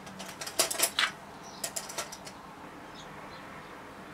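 Makeup brush tapping and scratching against an eyeshadow palette: a quick run of small clicks over about two seconds, then stillness.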